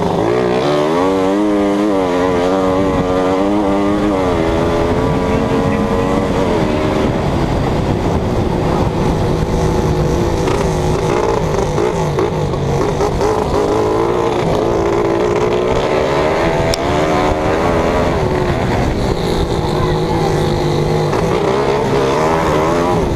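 Racing engine heard from on board, revving up and down through the gears. Its pitch climbs over the first few seconds, drops, climbs again, then keeps rising and falling.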